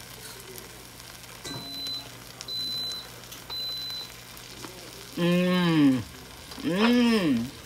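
Instant Pot Duo electric pressure cooker beeping three times, short high beeps about a second apart, as its setting is changed to keep the food warm. Then a woman hums two long "mmm"s while tasting the mac and cheese.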